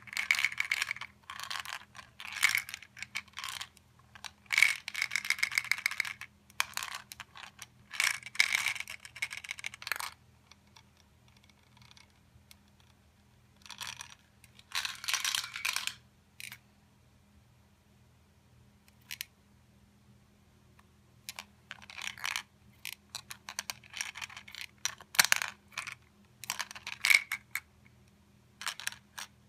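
M&M candies clicking and rattling against and inside a hollow plastic toy shark as it snaps them up and is moved about. The sound comes in several bursts with pauses of a few seconds between.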